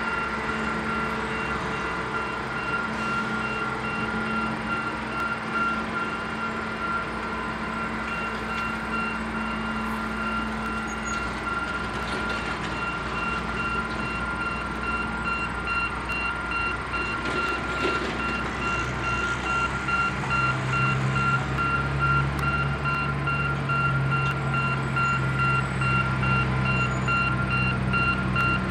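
Engines of intermodal yard equipment running steadily under a container gantry crane, with a steady high-pitched tone over them. A lower engine note comes in and grows louder about two-thirds of the way through as a yard truck pulling a chassis passes beneath the crane.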